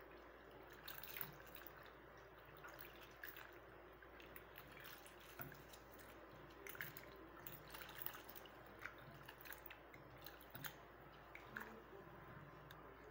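Faint wet squelching and small splashes of a hand squeezing ripe tomatoes and coriander leaves into water in a stainless steel pot, with scattered light ticks.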